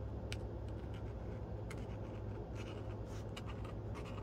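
Marker writing on glue-covered paper towel collaged into a journal page: short, scratchy pen strokes. A steady low hum runs underneath.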